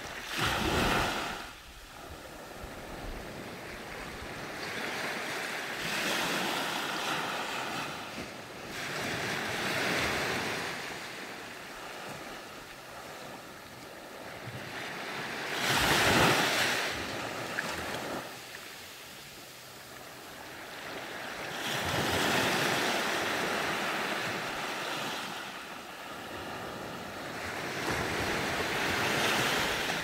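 Small waves breaking on a sandy beach and washing up the shore, each surge swelling and fading every few seconds; the loudest comes about halfway through.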